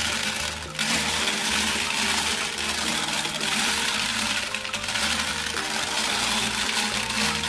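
Glass marbles clattering inside a Bruder toy cement mixer truck's plastic drum and rolling out down its plastic chute, under background music with a repeating bass line.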